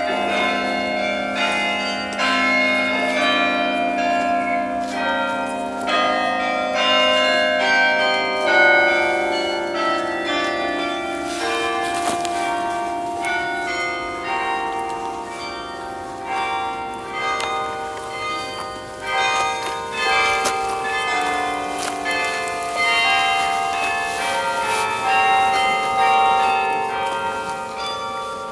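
Bok Tower's carillon playing a tune: many bells struck one after another and in chords, each note ringing on under the next.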